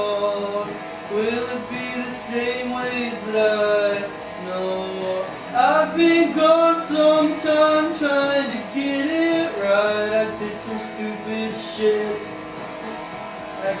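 A male voice singing a melodic vocal line into a studio microphone, with guitar accompaniment underneath.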